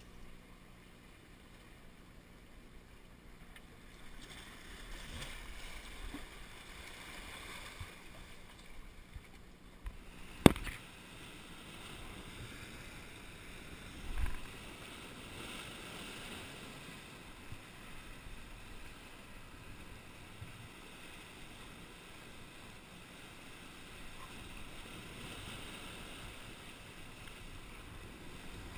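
Surf washing over coastal rocks with wind on the microphone, a steady rushing noise. A single sharp knock about ten seconds in and a short dull thump a few seconds later.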